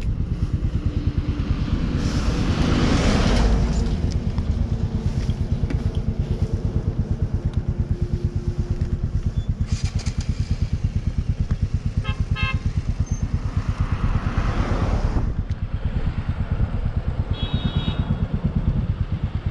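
Motorcycle engine running at a steady pace, with an even, rapid pulsing exhaust beat. A rush of passing air or traffic swells about two to four seconds in and again around fourteen seconds. Short high beeps come about twelve seconds in, and a brief high tone near eighteen seconds.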